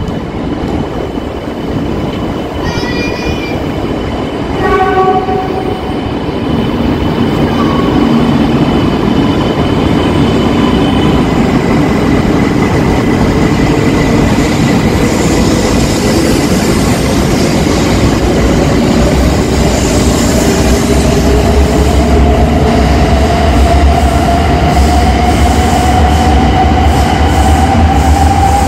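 E2-series Shinkansen pulling out of the station. Two short horn sounds come a few seconds in, then the train accelerates past with a steadily rising motor whine and a growing low rumble.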